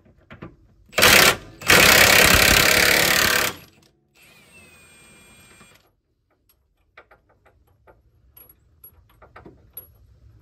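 Cordless impact wrench hammering on a rear subframe bolt to loosen it: a short burst about a second in, then a longer run of about two seconds. Faint clicks and taps follow.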